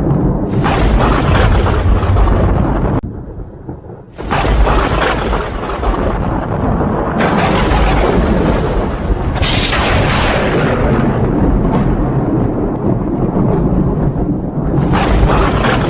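Thunder: a series of sharp cracks that start suddenly, each trailing into a long rumble, about five in all, with a brief lull about three seconds in.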